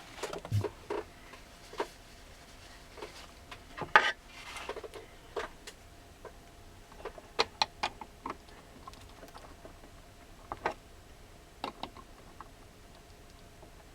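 Scattered small clicks and taps of hand tools and metal parts as a nut is tightened on a train controller's heat sink, with one louder knock about four seconds in.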